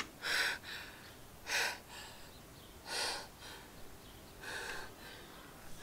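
A woman breathing in gasps, four breaths about a second and a half apart.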